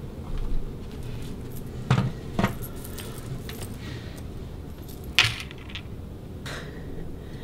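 Steady room noise with four short, sharp clicks or clinks: two close together about two seconds in, a louder one a little after five seconds, and a last one about six and a half seconds in.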